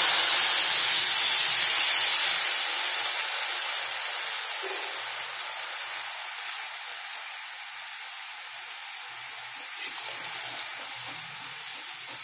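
Tamarind water hitting hot sesame oil in a kadai, sizzling loudly with a burst of steam. The sizzle fades over the next several seconds to a soft bubbling simmer.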